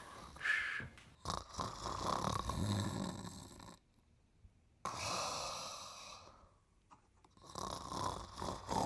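A man snoring in his sleep: a run of long snores, each a couple of seconds, with breaks of about a second between them.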